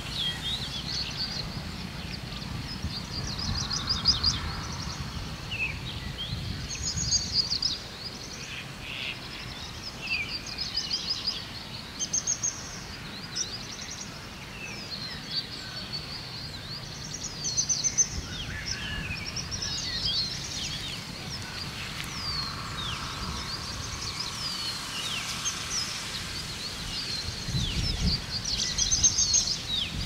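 Several small songbirds chirping and trilling, many quick high calls overlapping one another throughout, over a low rumble that swells near the start and again near the end.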